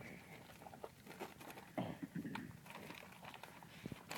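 Puppies eating from food set on the ground: faint chewing with scattered small clicks and scuffs.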